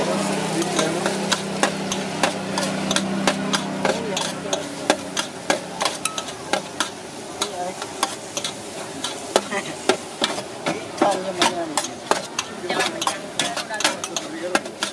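Metal spatulas clinking and scraping rapidly and irregularly against a wide wok as noodles, egg and vegetables are stir-fried, over a steady sizzle. A low steady hum fades out about four seconds in.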